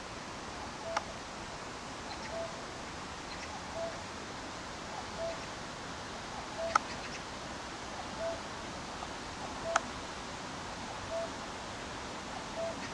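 Steady rush of a shallow stream, with a short single-pitched call note repeating about every second and a half, and a few sharp clicks.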